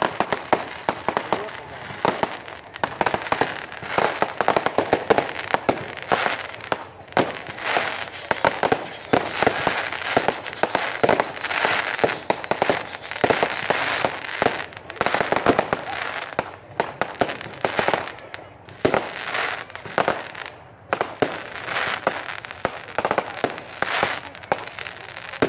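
Fireworks and firecrackers going off in a rapid, continuous string of bangs, pops and crackling, with a few short lulls.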